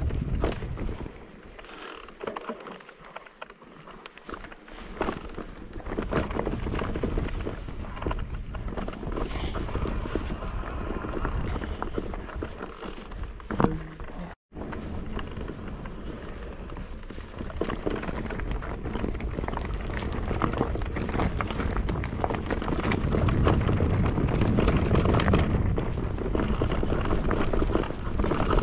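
Mountain bike riding over a rough trail: a continuous clatter of tyres on stones and the bike rattling, with wind on the microphone. The sound cuts out for an instant about halfway through.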